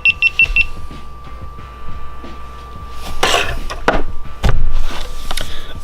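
GoPro Hero 5 Black beeping rapidly as it powers off in answer to the voice command: a quick run of short high beeps that stops about half a second in. After that come handling noises, knocks and rustling, with the loudest a little past four seconds, over a faint steady high tone.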